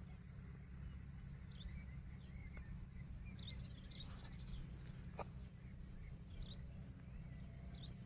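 Faint cricket chirping steadily, a high pulsed chirp repeating about two to three times a second, over a low steady rumble.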